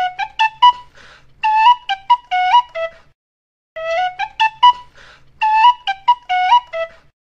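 Flute music: a short phrase of quick notes, some sliding up in pitch, played twice with a brief pause between.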